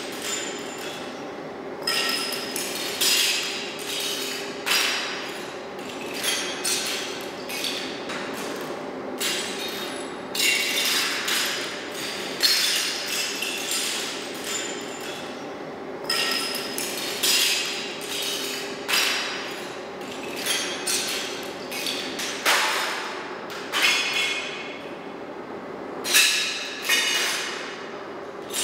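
Irregular metallic strikes and clinks, about one every second or two, each ringing on briefly with a bright metal tone, over a steady low hum.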